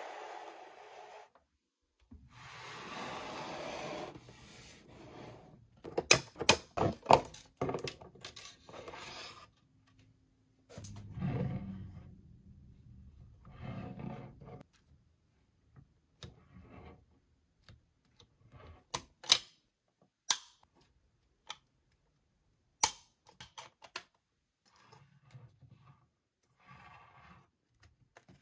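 Plastic toy packaging and figures being handled: rustling, then a quick run of sharp clicks and taps, followed by scattered single clicks.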